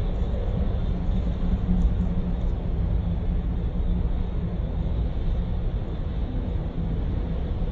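Small RC crawler truck driving over rough ground: a steady low rumble of its small electric motor, gears and tyres.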